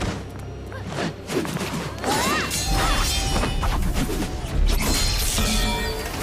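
Animated fight-scene soundtrack: action music under a rapid string of crashing impacts and whooshes, getting louder about two seconds in.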